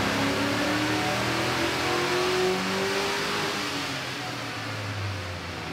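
Chevy Silverado's 4.8 L LS V8 at wide-open throttle on a chassis dyno, its pitch rising steadily as it revs up through the range under load, with two degrees of ignition timing added. The sound drops back about four seconds in.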